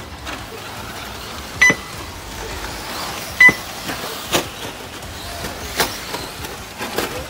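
Radio-controlled cars racing on a dirt track, their running a faint steady whir, with two short, high electronic beeps about two seconds apart from the lap-timing system. A couple of sharp clacks follow later, of cars hitting the ground or the track edging.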